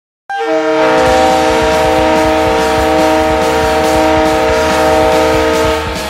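Green Bay Gamblers ice hockey goal horn sounding one long, loud blast, a chord of several steady tones that cuts off just before the end.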